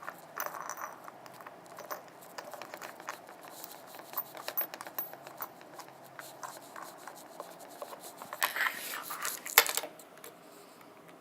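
Fidget spinners being handled on a table: scattered light clicks, taps and scrapes, with a louder scraping stretch and one sharper knock about three-quarters of the way in.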